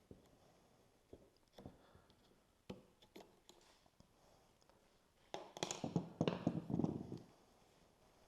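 Hands working on plastic and metal parts: scattered light clicks and taps, then about five seconds in a louder burst of rattling and scraping lasting under two seconds.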